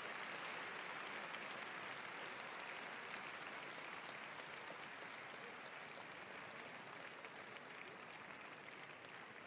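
Audience applause, slowly dying away.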